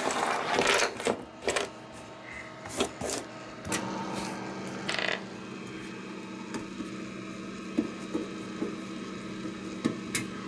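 Desktop PC's Cooler Master GX 750 power supply giving off a steady low buzzing hum, with several sharp knocks and clicks as the case is handled. The hum drops out for about two seconds early on, then comes back. The owner suspects the supply's fan motor has failed and is vibrating in place.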